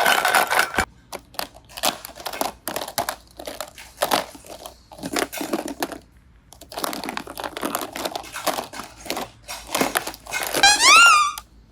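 Irregular crinkling and crackling handling noise, in uneven bursts. A short rising whistle-like sound effect comes near the end.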